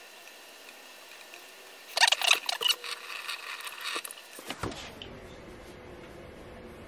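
Irregular knocking, clatter and splashing at a stainless steel kitchen sink, starting about two seconds in and lasting about two and a half seconds, as a wet whetstone is handled over the basin.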